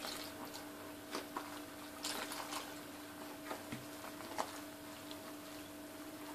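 Hands mixing and kneading a soft flour-and-water dough, giving faint, scattered squelching and tapping sounds. A steady low hum runs underneath.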